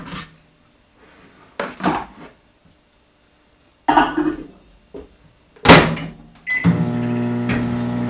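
Microwave oven handling: a few knocks and clunks as the brine goes in and the door shuts, a short keypad beep, then the oven starts with a steady hum about seven seconds in, heating salt brine so the salt dissolves.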